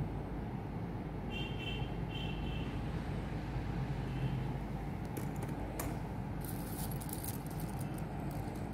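Metal choker necklaces clinking and jingling as they are handled and moved through a pile of jewellery, over a steady low background rumble. A few short high chirps come about a second in.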